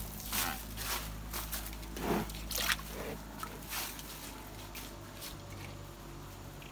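Water buffalo drinking from a bucket: irregular wet slurps and sloshes for about the first four seconds, quieter after.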